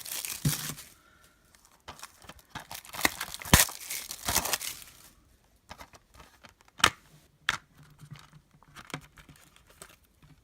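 Plastic shrink-wrap being torn and crinkled off a DVD case for about five seconds, followed by a few sharp plastic clicks and light handling noises.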